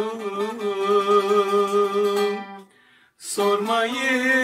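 Male voice holding a long sung note with vibrato in a Turkish song, over plucked-string accompaniment. The note breaks off about two and a half seconds in, and another long held note begins just after three seconds.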